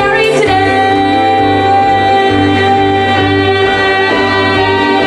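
A woman singing one long held high note over piano accompaniment, the note coming in about half a second in; it is the final note of a musical theatre song.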